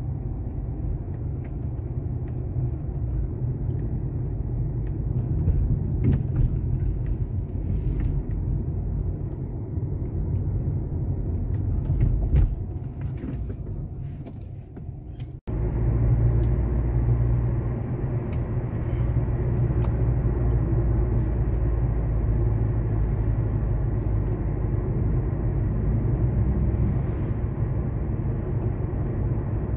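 Car cabin noise while driving: a steady low rumble of engine and tyres on the road, with a few faint clicks. About halfway it cuts out for an instant and resumes a little heavier in the bass.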